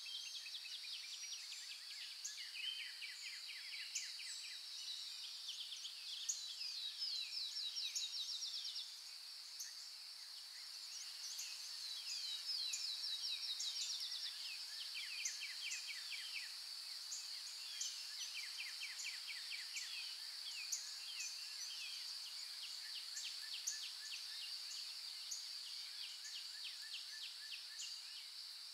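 Outdoor insect and bird ambience: a steady high-pitched insect buzz throughout, with repeated rapid trills and chirps over it.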